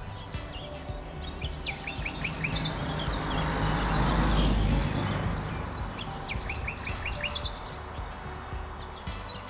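Small birds chirping and twittering in quick, high notes against a low outdoor rumble. A rushing noise swells to a peak about halfway through and then fades away.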